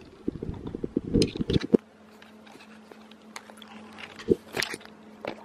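Handling noise from a hand-held camera being turned round: a burst of rubbing bumps and knocks for the first second and a half or so, then a few faint clicks.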